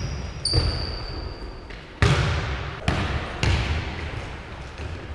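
Basketball bouncing on a hardwood court, four irregular echoing bounces, with a sneaker squeaking on the floor in the first second or so.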